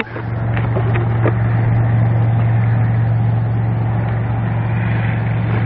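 A steady low hum of an idling engine, with a couple of faint clicks in the first second or so.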